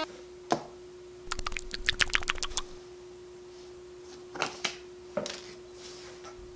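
Playing cards being handled and tossed onto a workbench: a single snap, then a rapid run of card clicks lasting about a second and a half, then a few separate slaps as cards land on the bench.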